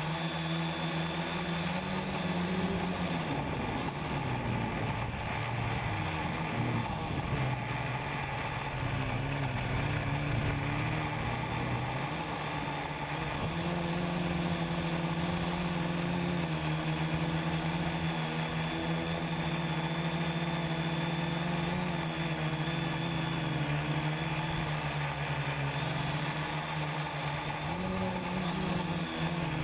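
Quadcopter's electric motors and propellers heard from its onboard camera, a steady buzzing hum whose pitch drops and rises a few times as the throttle changes.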